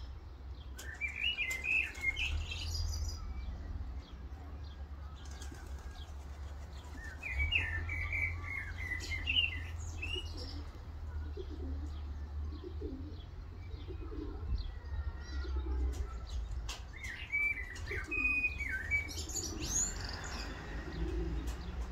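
Racing pigeons flapping their wings around a loft roof, with several bursts of high bird chirps over a steady low wind rumble.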